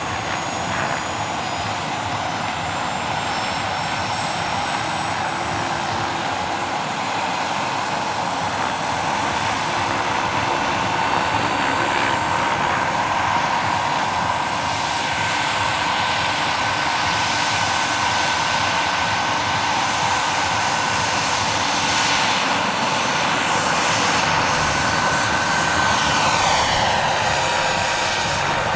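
Large-scale RC Bell 206 JetRanger model helicopter's turbine running with a steady high whine as its rotors turn on the ground, slowly growing louder. Near the end it lifts off and the whine sweeps in pitch.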